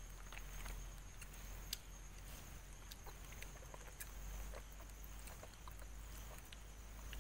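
Quiet night ambience: a steady faint high-pitched insect trill with scattered small clicks and taps over a low rumble.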